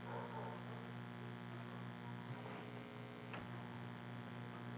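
Electric fan running with a steady low hum, and a faint click about three seconds in.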